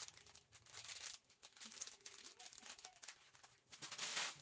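Crinkling and rustling of packaging being handled, in irregular short bursts, louder near the end.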